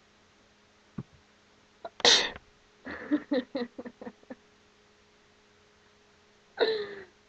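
A person sneezes loudly about two seconds in, followed by a quick run of short breathy sounds and another loud outburst near the end.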